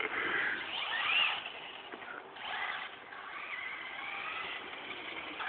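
Traxxas Slash RC truck's Mamba brushless electric motor whining as it is driven, its pitch rising about a second in and surging again about halfway through, then fading as the truck moves away.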